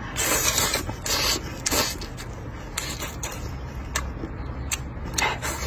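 A person slurping wide wheat noodles in several noisy sucking draws over the first couple of seconds, then chewing with short wet smacks and a further brief slurp near the end.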